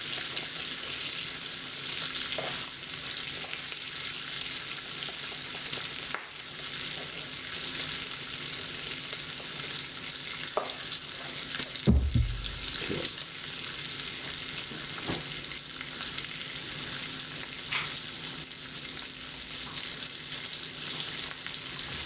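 Bacon sizzling steadily in a frying pan, with batter being stirred by hand in a plastic bowl and a few scattered knocks, the heaviest a low thump about twelve seconds in.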